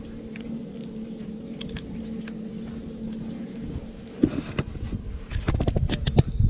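A steady low engine hum, with a few sharp clicks about four seconds in and a quick run of knocks and rattles near the end.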